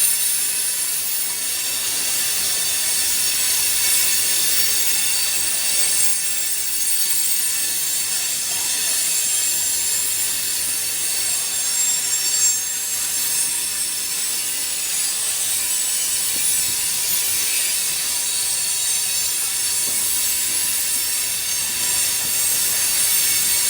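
Canadian National freight train rolling past with its wheels screeching against the rails: a steady, high-pitched squeal.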